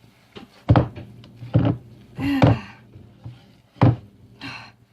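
A few dull knocks and thunks, about a second apart, from bowls and utensils being handled on a kitchen counter, with a brief vocal sound near the middle.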